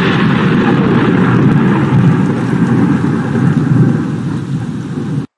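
Loud, steady rushing noise from a channel intro sound effect, with no tune or beat, cutting off suddenly near the end.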